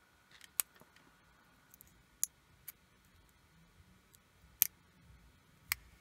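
Faint, sharp clicks, about five spread over several seconds and the loudest a little past the middle, from a thin metal blade prying at the small plastic housing of a Miroir M20 DLP pico projector's optical engine.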